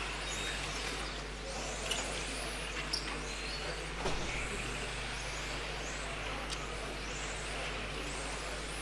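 Several electric RC touring cars racing round an indoor track: their high motor whines rise and fall as they accelerate and brake through the corners. A few sharp knocks cut through, the loudest about four seconds in.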